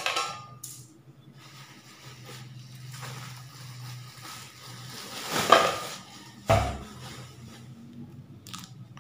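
A square pan and its plastic packaging being handled: rustling, with a louder rustle about five and a half seconds in and a thump a second later, then a small click near the end.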